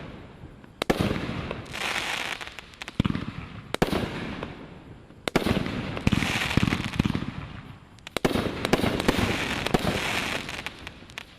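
Brothers Fireworks 'Schizo' consumer firework going off: a series of sharp bangs a second or more apart, each followed by a few seconds of hissing, crackling effects. The display dies away near the end.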